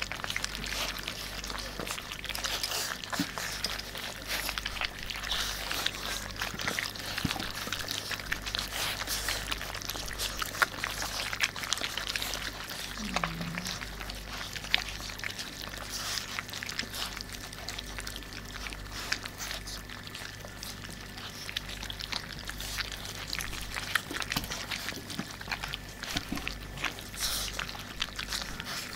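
Litter of Irish Setter puppies eating soaked puppy food from a stainless steel feeding dish: many small wet smacking and chewing noises with clicks of teeth and paws against the metal. One short squeak about halfway through.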